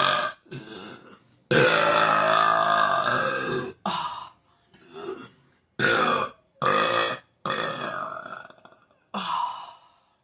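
A woman belching over and over after drinking Coca-Cola, about eight burps in all. The first two are long, drawn-out and the loudest, one ending just after the start and one running for about two seconds soon after. A run of shorter burps follows.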